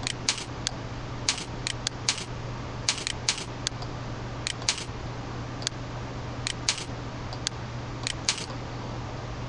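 Computer mouse button clicking, often in quick press-and-release pairs, irregularly about a dozen times while the panorama is dragged with the left button, over a steady low hum.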